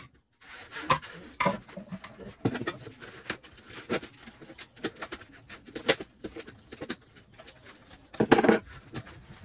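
Scattered light clicks and clinks of small metal tools and parts being handled on a worktable, with a louder, longer burst of noise about eight seconds in.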